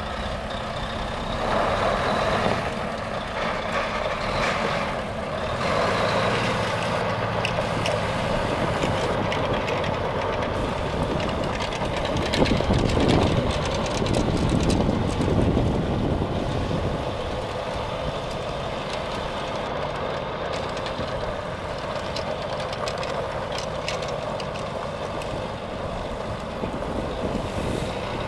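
2006 Volvo tandem-axle truck tractor's diesel engine running as the tractor is driven across a gravel lot, pulling louder about halfway through as it turns.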